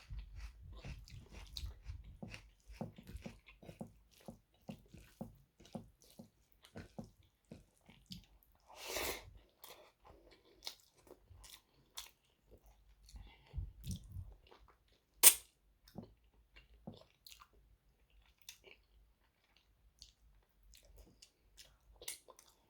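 Close-miked eating sounds: chewing and biting mutton curry and rice, with many small wet mouth clicks. A louder bite comes about nine seconds in, and a single sharp snap about fifteen seconds in.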